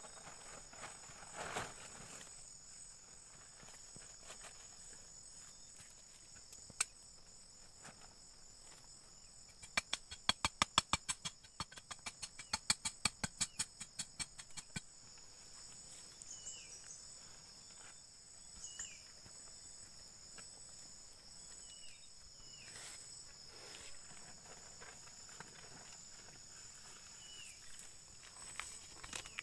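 Rain-forest insect chorus: a steady, high-pitched buzzing drone. About ten seconds in, a rapid run of sharp clicks or taps lasts about five seconds, and a few short chirps sound later on.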